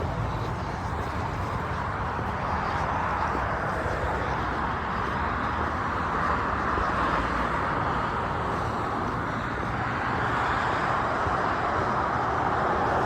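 Steady rushing background noise with no clear footsteps or breaths, swelling slightly partway through and again near the end.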